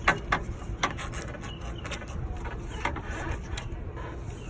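Hands fitting a rubber radiator hose onto its neck on the radiator: rubbing and scraping with a few sharp clicks, the loudest right at the start.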